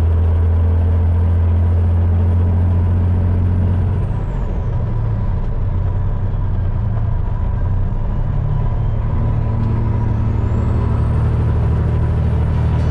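Peterbilt 389 semi truck's diesel engine running steadily under load. About four seconds in, its pitch drops and a high whine falls away as the engine eases off. Near the end, the engine and the whine climb back up as it pulls again.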